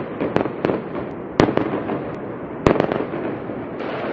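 Fireworks going off: a dense crackle with sharp bangs every half second or so, the loudest about a second and a half in and again near the three-quarter mark.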